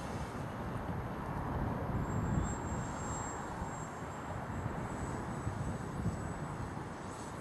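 Wind buffeting the microphone in uneven gusts, with the distant hum of an RC model plane's electric motor overhead and a faint high whine from about two seconds in.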